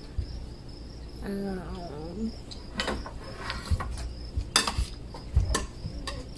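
Crickets chirping steadily, with cutlery and plates clinking sharply a few times, loudest in the second half. A child's short vocal sound about a second in.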